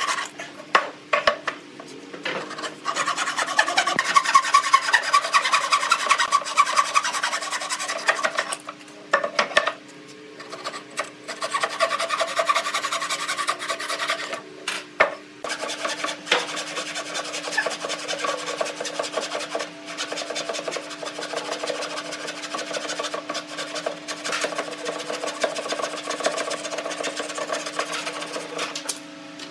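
Hand-pulled wooden frame saw cutting through a wooden board in quick back-and-forth strokes, stopping briefly a few times before carrying on.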